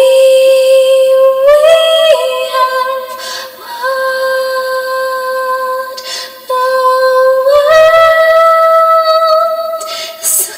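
A woman singing long held notes around a steady pitch, rising to a higher note twice and settling back, with short gaps between phrases.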